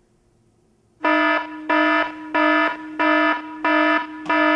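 An electronic alarm beeping in an even repeating pattern, about one and a half buzzy beeps a second. It starts about a second in, after near silence.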